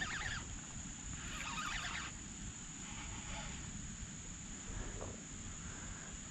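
Steady high-pitched insect drone, with a low rumble underneath.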